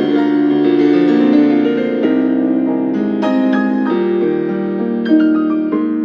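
Solo piano playing ballet class accompaniment, chords changing at a steady, unhurried pace.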